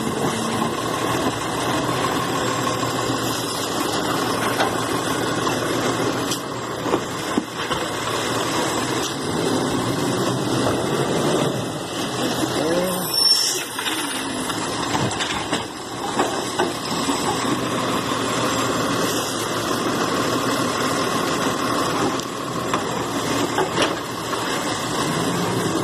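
Automated side-loader garbage truck at work: its engine runs steadily while the hydraulic lift arm operates, with a few knocks and clanks from the arm and carts.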